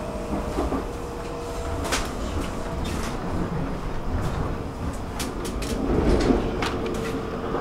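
Stockholm metro train in motion: a steady rumble with a faint held tone and scattered knocks and rattles, getting louder around six seconds in.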